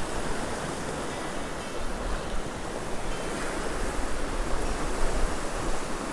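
Swollen, fast-flowing river rushing steadily over rapids.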